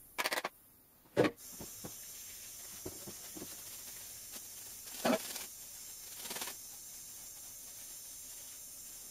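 Gyoza frying in a pan with a steady hiss, which starts just after a sharp clatter about a second in. Two shorter louder surges of noise come later.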